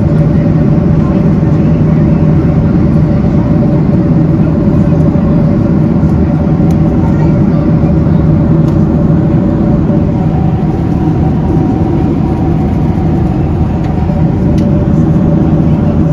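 Steady cabin drone of a Boeing 767-300ER in flight: engine and airflow noise from its General Electric CF6 turbofans, an even low hum with a couple of held tones running through it.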